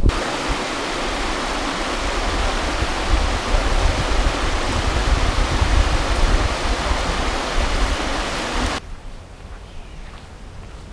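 Steady rushing of the Virgin River, an even noise of flowing water. It cuts off abruptly about nine seconds in, leaving a much quieter outdoor ambience.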